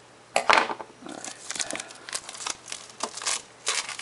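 Plastic shrink wrap crinkling and tearing as it is peeled off a phone box by hand, in a run of irregular crackles. The loudest comes about half a second in.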